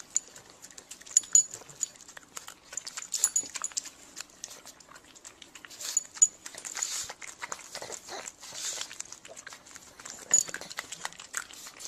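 A dog making sounds: many irregular sharp clicks and short noisy bursts.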